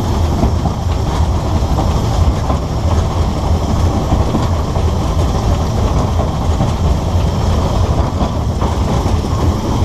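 A 2 ft gauge narrow-gauge steam locomotive running along the line, heard from its own cab: a loud, steady noise of the moving engine and its wheels on the rails, heaviest low down.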